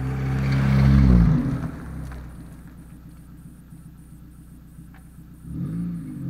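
Mitsubishi Colt A150 driving past close by. Its engine grows louder as it approaches and is loudest about a second in, then drops in pitch and fades away as the car goes off.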